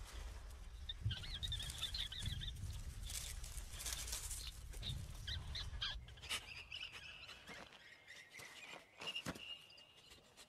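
Birds chirping over a low wind rumble, with crisp crunches of snow as a red fox pushes its nose into it, and a thin drawn-out whistled call near the end.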